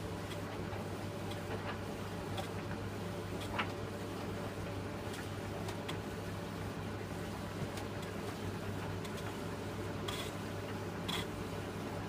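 Philips D180 tumble dryer running: a steady motor and drum hum as the drum turns with the laundry, with scattered light clicks and taps as the load tumbles.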